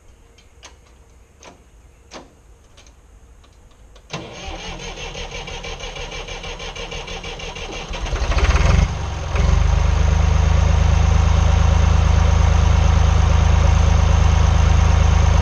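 A few light clicks, then about four seconds in the 1980 Massey Ferguson 230's diesel engine is cranked by its starter. It catches about eight seconds in and settles into a loud, steady run.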